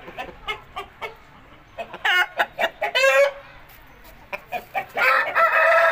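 Roosters calling: two short calls about two and three seconds in, then a longer crow starting about five seconds in.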